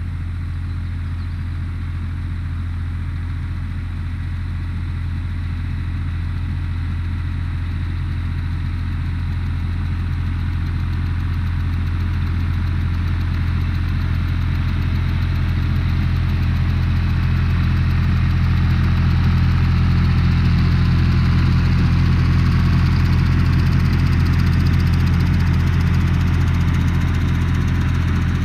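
Tractor engine running steadily at an even speed, growing gradually louder as the tractor drawing a fertilizer spreader comes closer.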